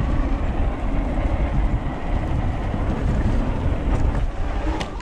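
Wind rushing over the microphone and the fat tyres rumbling on the path, from an electric bike riding at about 15 mph, with a few light clicks near the end.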